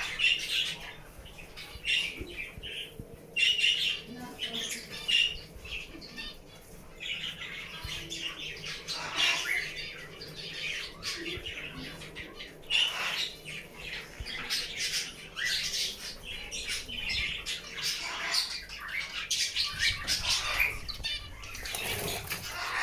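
Many caged birds squawking and calling at once, short irregular calls overlapping throughout.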